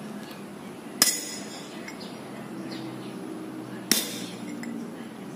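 Hammer striking a chisel held against an old wheel bearing's steel inner race on the front hub, twice, about three seconds apart, each a sharp metallic clink that rings briefly: the race is being chiselled off the hub neck.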